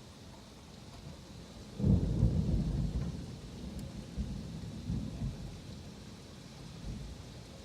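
A thunderclap breaks suddenly a couple of seconds in as a deep rumble, then rolls on in a few weaker rumbles and fades. Steady rain hisses underneath.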